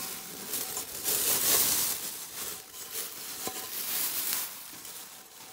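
Thin plastic bag crinkling and rustling as it is handled and pulled off a pressure cooker's inner pot, loudest in the first couple of seconds and fading towards the end.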